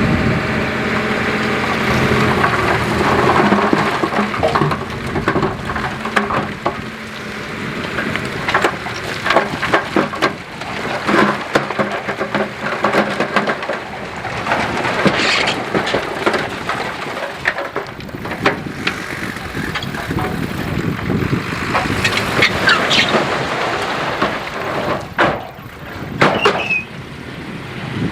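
Heavy construction machinery at work: an engine note that is strongest in the first few seconds, overlaid by many sharp clanks and knocks.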